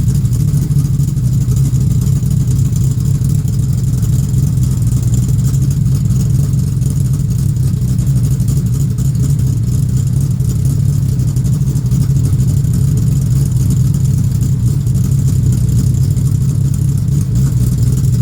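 A steady, loud, low mechanical drone that does not change in pitch or level.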